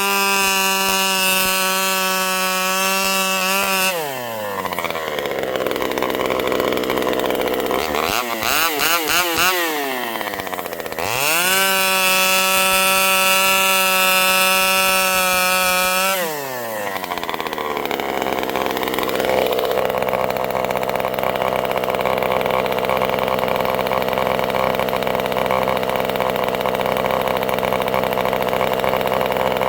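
Vintage Pioneer two-stroke chainsaw held at full throttle for about four seconds, dropping back and blipped up and down, then held wide open again for about five seconds before settling back to a steady idle for the rest.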